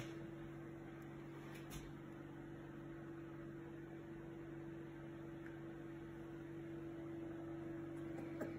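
Steady low hum of room tone, with a faint click about two seconds in.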